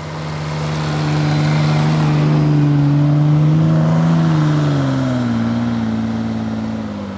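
An off-road 4x4's engine running hard under load on a snowy climb as the vehicle passes close by. The engine note swells to its loudest midway, then drops in pitch over the last few seconds as it pulls away.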